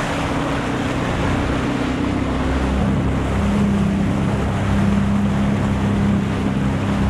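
Jet ski engine running steadily under way, its note dropping a little about three seconds in, with wind and water rushing over the microphone.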